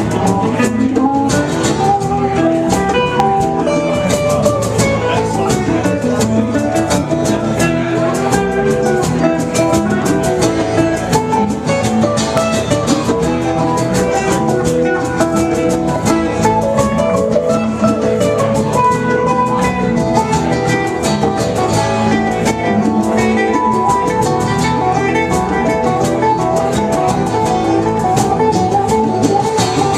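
Live band playing an instrumental stretch of the song with guitar to the fore over a steady beat.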